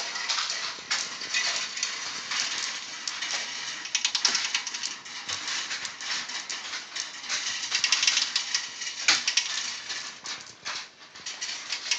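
Glass marbles rolling and clicking along the copper-wire tracks and spiral chutes of a mechanical marble 4-bit adder: a dense rattle of many small clicks, louder around four and eight seconds in.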